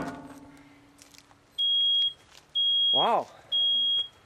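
Photoelectric smoke alarm going off: three loud, piercing, high beeps about a second apart, set off by smoke from a smoldering couch cushion. Just before them, a clank that rings briefly.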